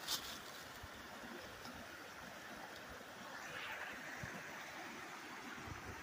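Mountain creek running with a faint steady rush, a brief rustle at the start and a few soft low thumps.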